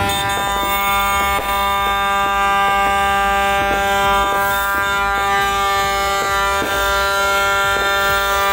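A single steady, buzzy horn-like note held unbroken for about nine seconds, with sharp crackling pops scattered through it from the hand-held fireworks burning.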